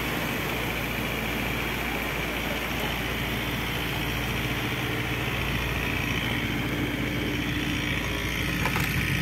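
A sailing yacht's engine running steadily under way, under a constant hiss of heavy rain and wind.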